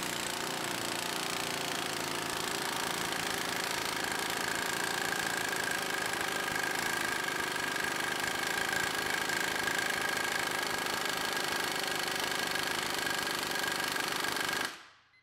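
Mako half-inch pneumatic impact wrench hammering in reverse on a torque dyno, running at full throttle on higher line pressure for about fifteen seconds, with a steady whine coming in about four seconds in. It cuts off suddenly near the end.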